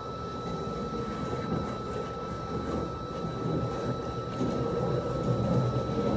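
Steady low rumble of an idling truck engine with a thin, constant high whine over it, growing louder over the last couple of seconds.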